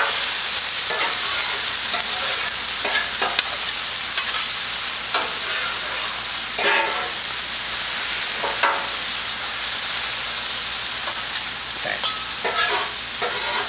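Onion, garlic, peas and carrots sizzling in oil on a Blackstone flat-top griddle at full heat, a steady hiss. Metal spatulas scrape across the griddle every second or two.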